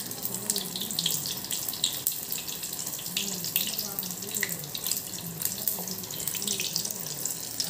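Battered eggplant slices (brinjal bajji) deep-frying in hot oil in a steel kadai, the oil bubbling with a steady stream of small crackles.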